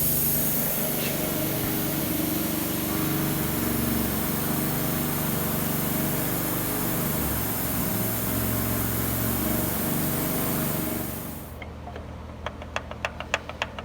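A motor runs steadily, its pitch shifting a little, then cuts off about eleven seconds in. A quick series of sharp clicks follows near the end.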